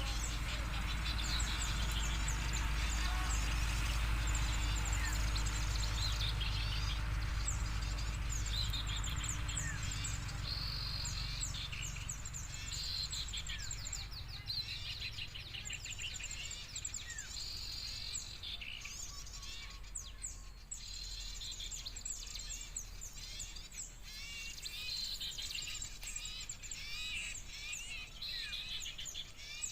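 Busy chatter of many small birds: dense, overlapping high chirps and quick trills from a bird-trapping lure call of noisy small birds mixed with sooty-headed bulbul calls. A low rumble sits underneath through the first dozen seconds.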